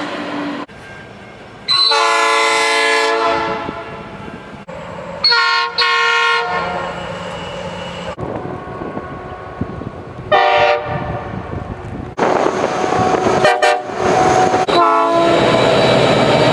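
Locomotive air horns sounding in a string of short clips. There is a long chord blast about two seconds in, two short blasts a few seconds later, and another short blast near the middle. Toward the end comes the loud running noise of a passing train.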